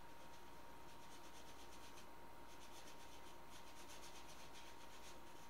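A paintbrush scrubbing and dabbing paint onto a stretched canvas in quick, repeated scratchy strokes, faint, over a steady thin high whine.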